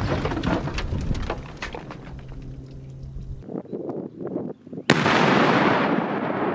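Demolition charge explosions: the rumble of a blast under a car dying away with debris clattering down, then about five seconds in, a second charge detonates with a sharp blast and a long, slowly fading rumble.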